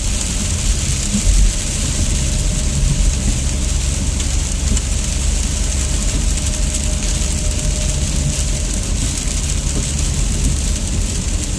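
Car interior noise while driving on a wet highway in rain: a steady low road rumble with the hiss of tyres on wet pavement and rain on the car.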